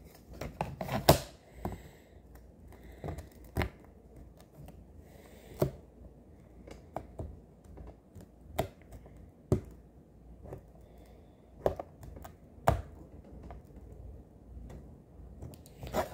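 Scattered sharp clicks and plastic taps of a small clear plastic diamond-painting piece being pushed and knocked against its little plastic stand, the loudest about a second in. The piece will not seat in the stand's slot.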